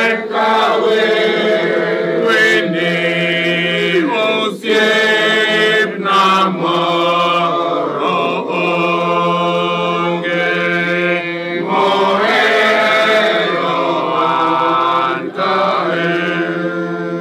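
A congregation singing together, many voices holding a slow chant-like melody over a sustained low note, with a man's voice leading through a microphone.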